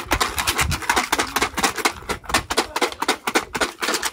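Wooden fortune sticks rattling inside a hexagonal wooden omikuji box shaken by hand: a fast, irregular clatter of clicks.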